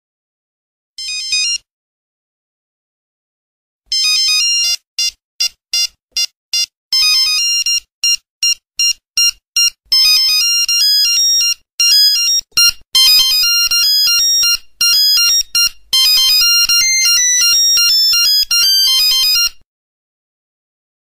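Nokia 2300 mobile phone ringtone: a short burst of electronic tone about a second in, then after a pause a quick electronic melody of many short notes that starts about four seconds in and stops a little before the end.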